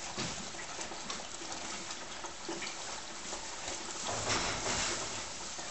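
Horse eating hay from a slow hay feeder: rustling and crunching as it pulls mouthfuls through the holes of the grid and chews, a little louder about four seconds in.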